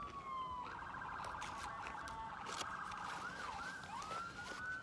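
Emergency vehicle siren cycling through its patterns: a wail falling in pitch, then a fast warbling yelp for about two seconds, a few quick swoops, and a wail rising again near the end.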